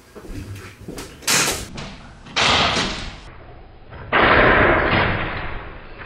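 A door being opened and shut as someone comes in: a short knock about a second in, then two longer rushing bursts, the loudest starting about four seconds in and fading over more than a second.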